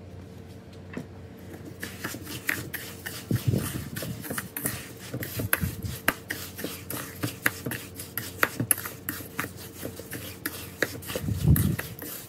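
A metal spoon stirring and scraping coarse salt wet with egg white in a stainless steel bowl: a rapid gritty scraping with small clinks, starting about two seconds in. The salt and egg white are being worked into a salt-crust paste.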